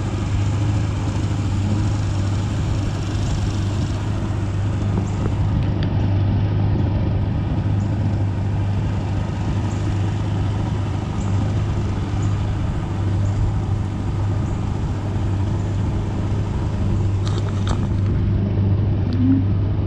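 Boat's outboard motor running at low, no-wake cruising speed: a steady, even drone.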